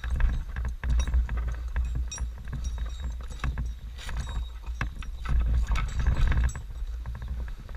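A climber moving on a roof: scattered knocks, clinks and scrapes of climbing gear and footing, over a heavy low rumble on the microphone.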